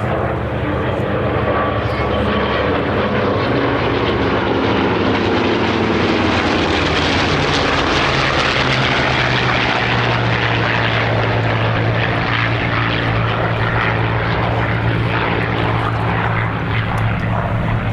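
Rolls-Royce Griffon V12 piston engine of a warbird on a flypast, loud and steady, growing louder toward the middle as it passes, with its engine note dropping in pitch.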